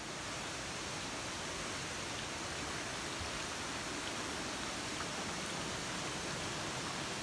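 Steady rushing of flowing water from a forest stream, with a few faint ticks.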